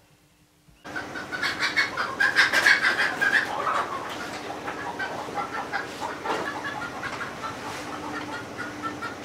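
Chickens clucking, an irregular string of short calls starting about a second in.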